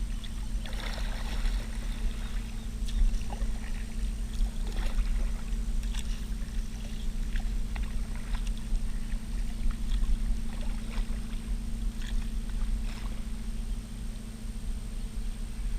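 Kayak on the water: irregular splashes and drips from paddle strokes, about one every second or two, over a steady low hum.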